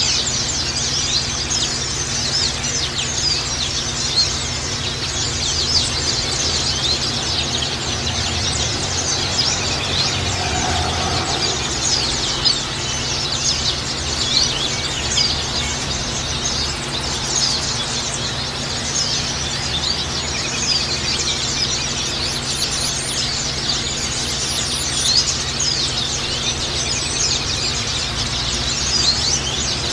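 A flock of white-eyes (Zosterops, pleci) chirping and singing together in a dense, continuous chatter of quick high notes.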